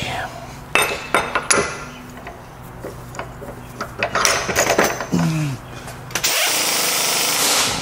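Steel machine parts knocking and clinking as they are handled and set down on a steel workbench, then a steady hiss about a second and a half long near the end that cuts off sharply.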